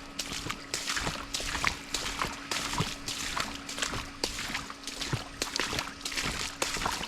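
Footsteps sloshing and splashing through shallow water and mud on a wet trail, two to three steps a second.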